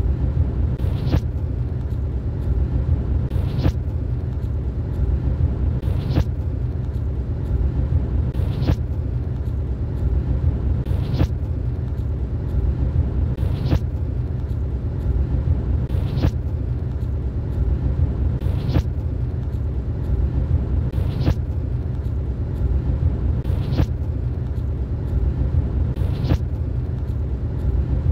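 Steady low rumble of a moving road vehicle, heard from inside it, with faint sharp ticks at an even pace of about one every two and a half seconds.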